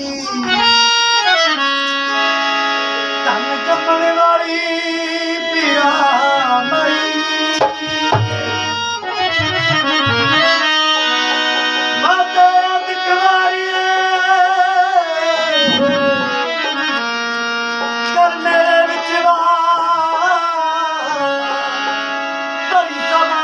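Harmonium playing long held notes and chords under a man singing a slow devotional melody with wavering, ornamented held notes.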